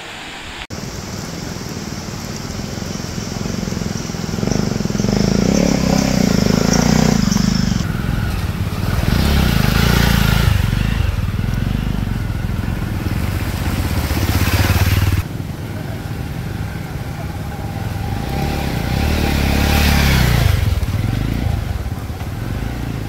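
Motorcycle engine running under way, its note rising and falling several times as it speeds up and eases off, with a sudden drop in level about fifteen seconds in.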